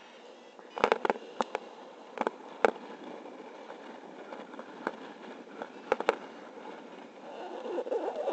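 Steady wind noise from airspeed rushing over the microphone of a camera worn in paragliding flight, broken by about a dozen sharp cracks and pops, most of them in the first three seconds and around the sixth.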